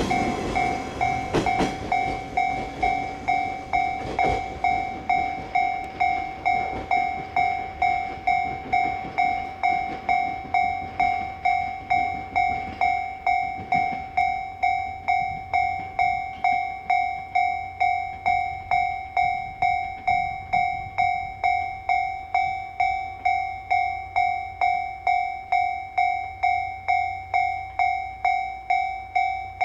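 Japanese level-crossing warning bell ringing, an electronic two-tone ding repeating about twice a second. In the first few seconds a train's wheels rumble and clack over the rails, dying away by about five seconds in.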